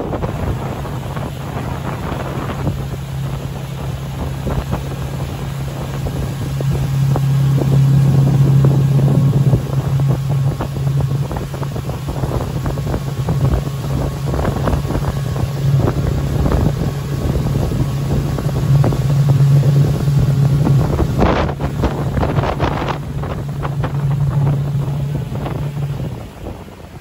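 A small motorboat's engine running with a steady low hum under the rush of wind buffeting the microphone. The engine note drops away briefly near the end.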